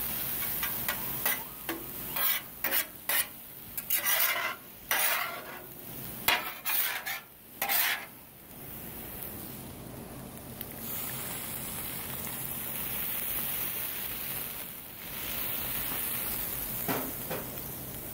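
Metal spatula scraping and pushing fried rice across a Blackstone flat-top griddle: a run of quick scrapes in the first half, then a steady sizzle, with a few more scrapes near the end.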